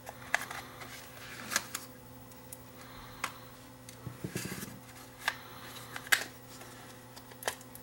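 Scattered sharp clicks and taps of the small metal-cased Sony WM10 Walkman cassette player being handled and opened, its lid lifted off and the case turned over in the hands.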